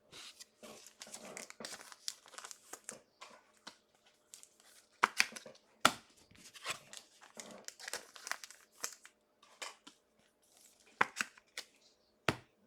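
Trading cards and their plastic packaging being handled: irregular crinkling and rustling, with a few sharper snaps around the middle and near the end.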